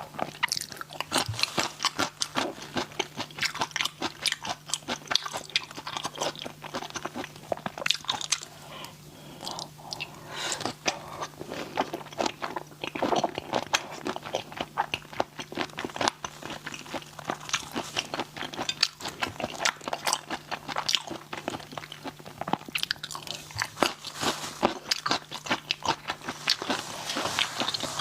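Close-miked eating of spicy raw shrimp: continual crunching and wet chewing, a rapid run of sharp crackly bites with a brief lull partway through.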